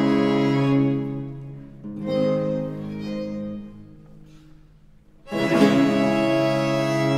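Period-instrument baroque string ensemble (violins, violas, bass violin, with theorbos and harpsichord) playing slow, long-held chords. Each chord swells and fades away; the music falls soft about four seconds in before a loud full chord enters.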